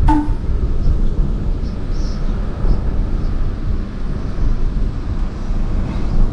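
Car driving along a road, heard at an open side window: a steady low rumble of wind buffeting and road noise, with a brief click right at the start.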